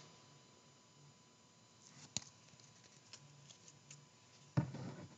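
Faint handling of trading cards: a sharp click about two seconds in, a few light ticks after it, and a short scrape near the end.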